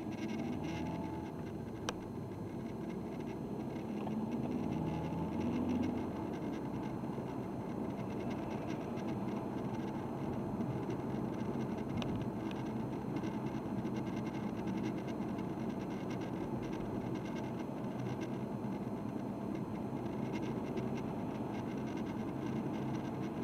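Vehicle in motion: steady engine and road rumble overlaid with fine, rapid clicking, with a brief rise in engine pitch around the middle.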